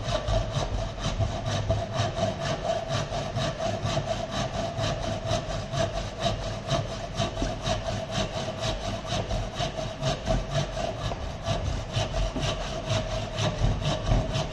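Hand rip saw cutting through a wooden block in fast, even back-and-forth strokes, about three a second, with a steady tone running under the strokes.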